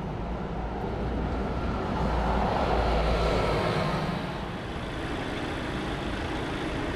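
Street traffic: a steady rumble of road noise, with a passing vehicle swelling to its loudest about two to three seconds in and then fading.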